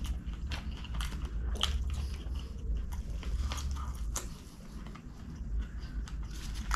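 Close-up chewing and wet mouth clicks of a man eating chicken kottu, chopped roti with devilled chicken, along with his fingers squishing into the pile of food. The clicks come irregularly, several a second.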